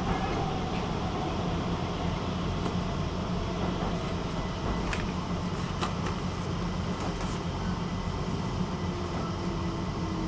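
Stockholm metro train running, heard on board: a steady low rumble of wheels on rails with a constant hum. There are a couple of faint clicks about halfway through, and a faint tone slowly falls in pitch near the end.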